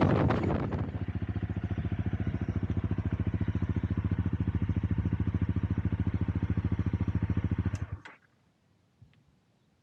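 Honda CRF250 Rally's single-cylinder four-stroke engine idling with a steady, rapid even beat as the wind noise of riding dies away in the first second. The engine is switched off and cuts out suddenly about eight seconds in, leaving quiet with a couple of faint clicks.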